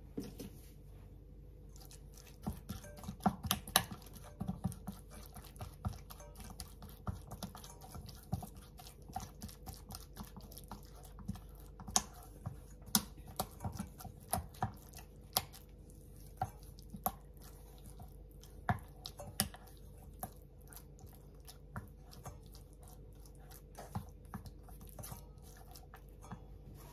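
Rubber spatula mashing and stirring crumbled silken tofu in a stainless steel bowl, with irregular clicks and taps against the metal starting about two seconds in.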